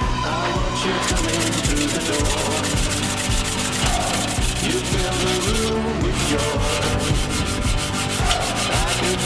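Aluminium alloy sheet hand-sanded with 240-grit sandpaper in rapid, even back-and-forth strokes along the grain, rubbing the surface to a brushed finish. There is a brief pause about six seconds in.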